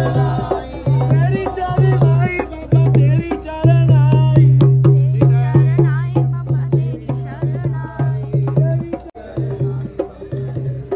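Loud processional music: drums and hand percussion over a wavering melody, with a deep bass note repeating in short blocks.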